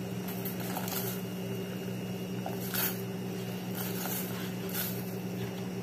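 Water at a rolling boil in a stainless steel pot, bubbling steadily, with several brief splashes and taps as raw shrimp are dropped in from a plastic tray. A steady low hum runs underneath.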